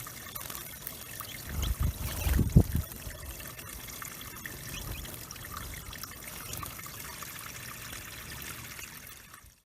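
Water steadily trickling into a backyard bird pond, with a few loud low thuds about two seconds in. The sound cuts off abruptly near the end.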